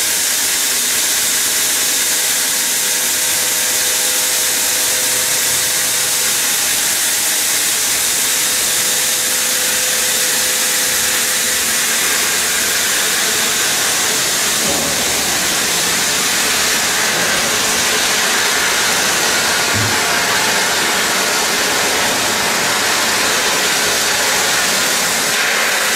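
TGQ 160 stone cutting machine's large circular saw blade cutting a stone block under water spray: a steady, loud hissing rush with a faint steady motor hum under it.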